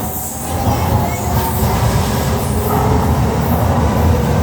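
A Docklands Light Railway train running on the rails, with a deep rumble and a steady whine that grow louder as it picks up speed.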